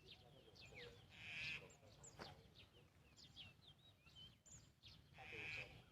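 Faint chirping of several small wild birds: many short, quick high chirps and sweeping notes, with a short buzzy burst about a second and a half in and another near the end.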